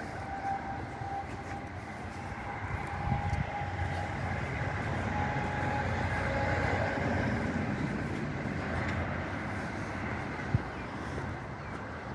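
Heavy truck diesel engine running steadily at idle: a continuous low rumble with a faint steady whine over it, a little louder in the middle. A single sharp click comes near the end.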